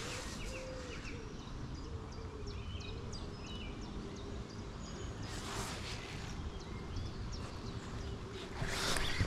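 Outdoor riverside ambience: a steady low rush of wind or water, with small birds chirping faintly in the first few seconds. Two short gusts of rushing noise come about five and a half and nine seconds in.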